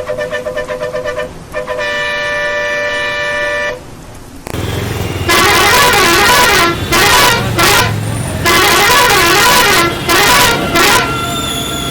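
Road vehicle horns honking in traffic. A rapidly pulsing horn gives way to a long steady blast. From about four and a half seconds a louder warbling horn sounds in several blasts of differing length over low traffic rumble.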